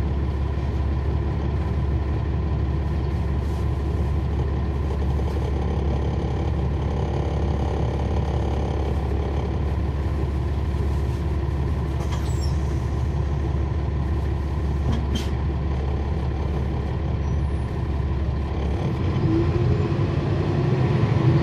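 Cummins ISL9 inline-six diesel of a NABI 40-SFW transit bus heard from on board, running at a steady low hum. Near the end it grows louder as the engine picks up.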